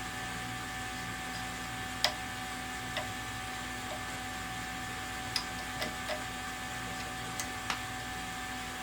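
Scattered light clicks and taps of cables and plastic parts being handled and pushed into place on a laser engraver's frame, the sharpest about two seconds in, over a steady electrical hum.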